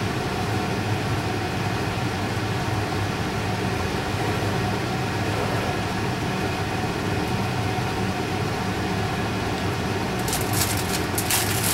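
Steady machine hum from a fan-type appliance running. From about ten seconds in come a few quick scrapes and clinks as a spatula works against the mixing bowl.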